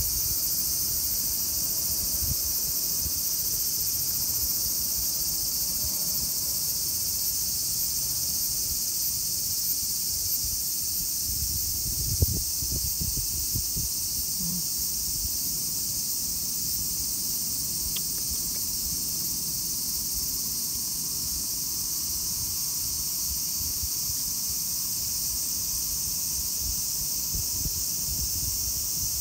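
A steady, high-pitched chorus of insects droning without pause, with a low rumble beneath and a single brief thump about twelve seconds in.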